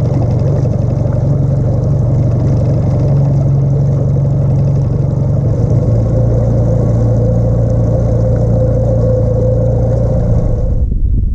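Outboard motor of an aluminium bass boat running steadily while the boat is underway. Its pitch drops about six seconds in, and the engine sound stops abruptly near the end.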